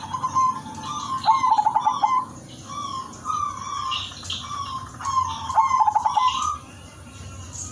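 Zebra dove (perkutut) singing: cooing notes with two quick stuttering runs, about a second in and again around five and a half seconds in. Short higher chirps sound behind it.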